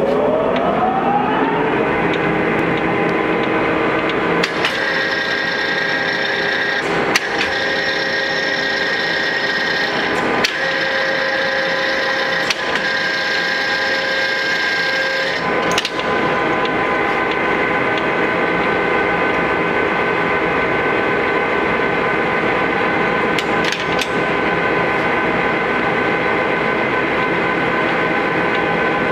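TOS SUS 63 geared-head lathe running, its headstock gears whining in a dense set of steady tones. The whine rises as the spindle comes up to speed in the first second or so. Several sharp clicks follow, with the set of tones changing at most of them, which fits the speed levers being shifted.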